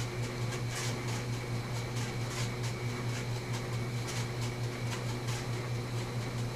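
A steady low mechanical hum, like a running fan or motor, with a few faint, short scratchy ticks scattered over it.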